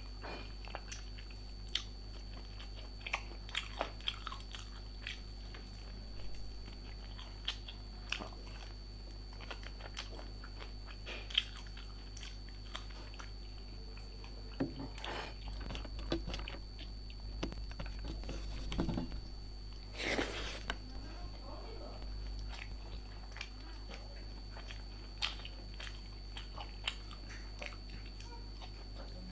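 Close-miked eating: chewing and biting food, with scattered crunches and wet mouth clicks, a denser stretch of louder chewing about halfway through. A steady low hum and a faint high whine run underneath.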